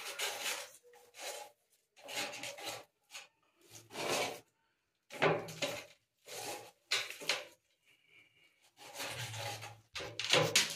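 Steel trowel scraping cement mortar from a pan and spreading it over the back of a ceramic wall tile, in a series of short scraping strokes with pauses between them.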